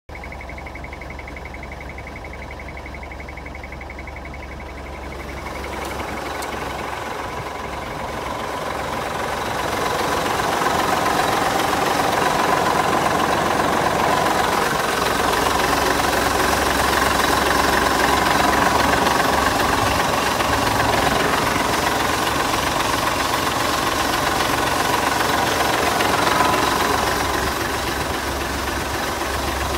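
Hino truck's diesel engine idling steadily, growing louder from about five seconds in until about ten seconds in.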